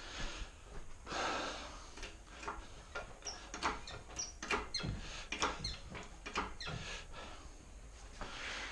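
Hydraulic engine hoist being worked while it holds a hanging engine: a string of irregular metal clicks and clunks, with a few short high squeaks in the middle.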